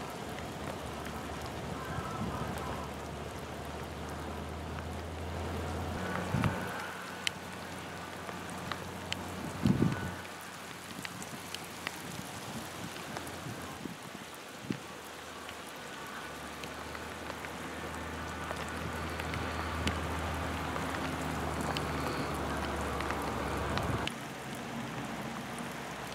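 Freezing rain and sleet falling: a steady patter with scattered sharp ticks of ice pellets striking icy surfaces, over a low steady hum. A brief louder thump comes about ten seconds in.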